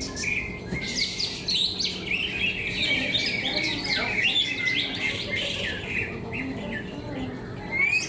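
Several caged cucak ijo (green leafbirds) singing at once in a dense run of fast chirps, trills and whistled phrases that overlap without a break.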